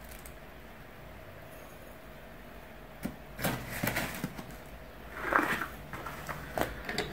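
Paper tea bag rustling and light clicks and taps of a tea scoop as dry loose pu'erh tea leaves are scooped out. It is quiet for about the first three seconds; the handling sounds are scattered through the rest.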